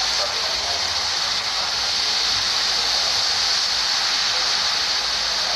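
A steady, even hiss with a bright upper edge and no breaks or distinct events.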